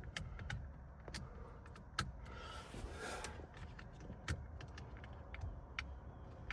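Sharp clicks and knocks of plastic trim and clips being worked loose under a car's steering column, with a short rustling scrape about two and a half seconds in.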